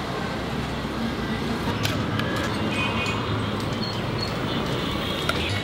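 Steady street ambience of passing traffic with background voices, and a few short clicks.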